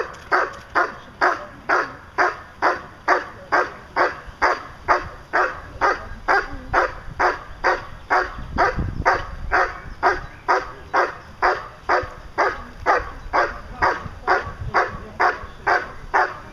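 German Shepherd barking steadily and rhythmically at about two barks a second. It is the hold-and-bark at the blind in Schutzhund protection work, the dog keeping the hidden helper in place by barking.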